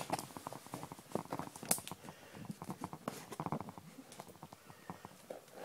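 Handling noise from a camera tripod being adjusted: a run of small, irregular clicks, taps and rattles, with one sharper click a little under two seconds in.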